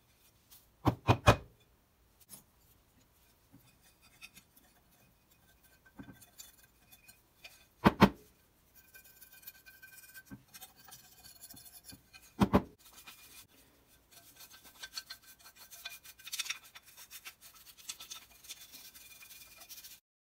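A thin metal pick scraping and scratching inside the cast-iron body of a Stanley No. 5 bench plane, clearing out packed wood debris. There are a few sharp knocks: a double one about a second in, then one near eight seconds and one near twelve seconds. After that the scratching gets busier.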